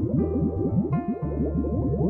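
Background music: held chords that change about once a second over a fast run of short sliding notes.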